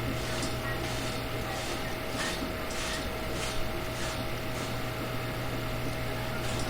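Steady low background hum with a faint steady tone, and now and then a faint soft tick.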